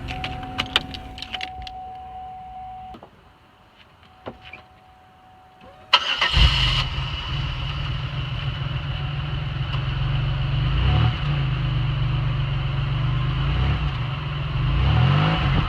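Chevy Impala's engine cranked and started about six seconds in, then idling steadily. Before it, a few light clicks and a faint steady tone.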